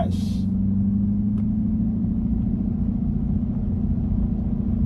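Car engine running steadily at low revs: an even, low rumble that holds the same pitch throughout.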